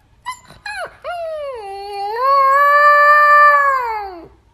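Husky-type puppy howling: a few short yips, then one long howl that dips, rises and holds, and falls away near the end.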